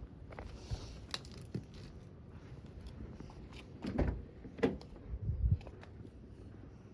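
Scattered clicks and light knocks of objects being handled, with a few louder thumps about four to five and a half seconds in.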